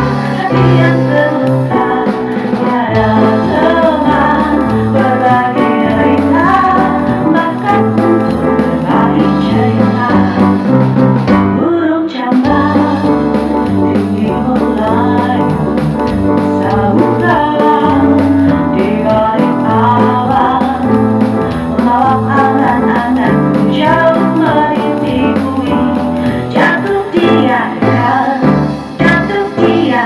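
A woman singing with an electric keyboard and an electronic drum kit playing along.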